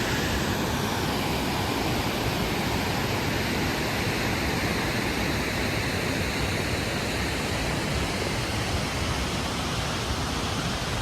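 Steady, full rush of a waterfall plunging into its pool.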